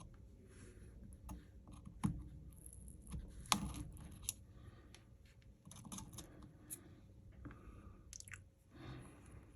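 Small tools and phone parts handled on a repair bench during smartphone disassembly: scattered light clicks, taps and crackling, with two sharper clicks about two and three and a half seconds in.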